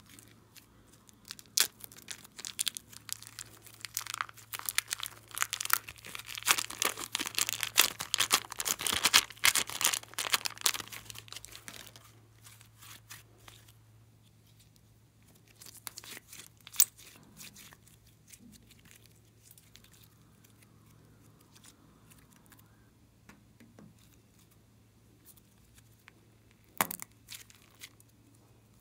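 Slime being squeezed by hand out of a plastic piping bag: a dense run of crinkling and crackling clicks for several seconds, thinning out to scattered clicks, with a sharp crinkle of plastic near the end.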